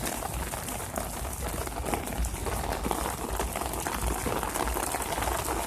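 Heavy downpour of rain falling steadily: an even hiss of many drops pattering close to the microphone.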